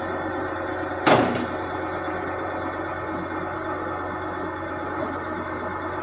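Hydraulic wood chipper's engine running steadily, with one sharp, short burst of noise about a second in.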